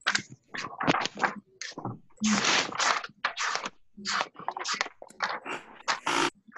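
Scratchy rustling and scraping picked up by a video-call microphone, in short irregular bursts, mixed with bits of unclear speech.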